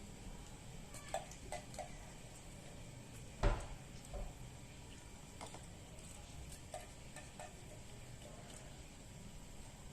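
Scattered light clinks and knocks of dishes, with one louder knock about three and a half seconds in.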